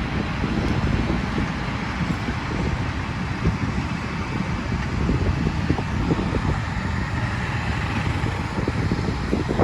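Tractors pulling hay balers, running steadily with a low rumble, with wind on the microphone.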